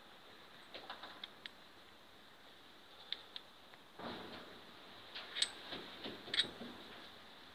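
Machined metal rings clicking and clinking against each other as they are handled, a few light clicks at first, then a scraping shuffle with two sharper clinks near the end.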